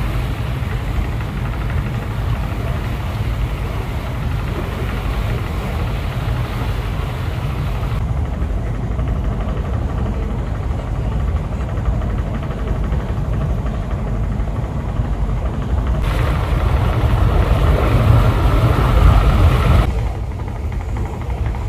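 Steady low rumble of a river cruise ship under way, mostly engine and vessel noise. The sound shifts abruptly a few times, getting a little louder and brighter for a few seconds near the end.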